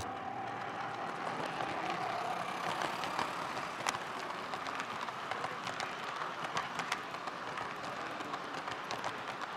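Model freight train of refrigerator cars rolling along the layout track: a steady rolling rumble with many quick irregular clicks from wheels over the rail joints, and a faint whine that slowly drops and fades about two seconds in.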